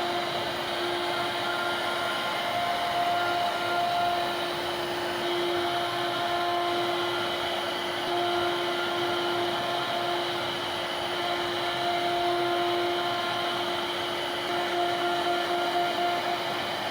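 CNC router spindle running and cutting into a wooden door panel: a steady motor whine over a rushing noise, the whine swelling and easing every second or two as the cutter's load changes.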